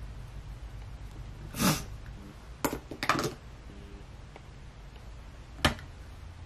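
A few short, sharp taps and clicks from handling a makeup stick and patting product onto skin: a brief rustle about a second and a half in, a cluster of clicks around the three-second mark, and one more click near the end, over a low steady hum.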